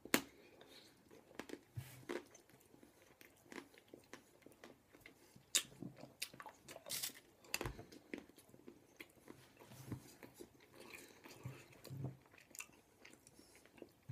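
A person eating Cadbury Creme Eggs quickly, biting and chewing. The sound is faint, with irregular short mouth clicks and smacks and a few louder bites.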